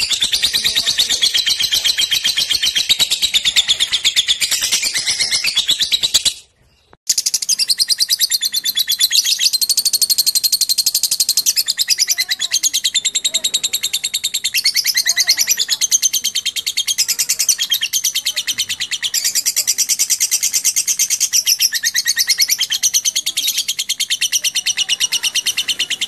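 Lovebirds singing in a long, fast, unbroken chatter of high chirps and trills, with a brief silence about six and a half seconds in.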